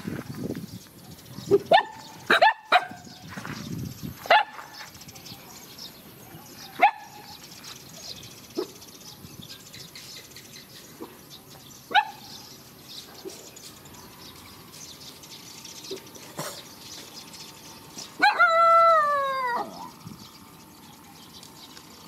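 A dog barking: about six short, sharp single barks spread over the first twelve seconds, then one longer drawn-out call, falling in pitch and lasting about a second and a half, near the end.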